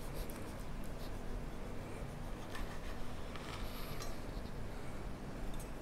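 Quiet kitchen room tone with a few faint light clinks and taps of utensils being handled.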